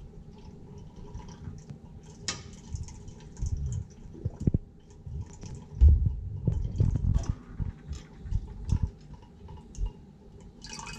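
Small amounts of liquid poured and dripped from a small glass beaker into a larger glass beaker of stirred carbon slurry. Light ticks and taps of glass are scattered through, with a few soft low bumps of handling around the middle.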